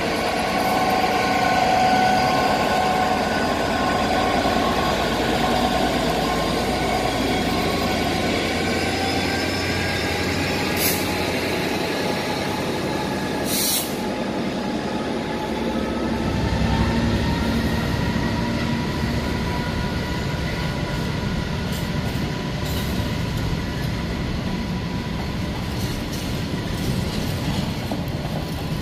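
A Class 66 diesel locomotive hauling a container freight train passes, followed by a steady run of container wagons rolling over the rails. Held tones sag slightly in pitch as the train goes by. There are two short sharp clicks about halfway through, and the low rumble grows heavier from a little past the middle.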